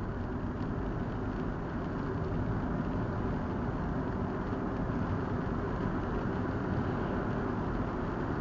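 Steady road noise of a car driving at speed, tyre and engine rumble heard from inside the cabin.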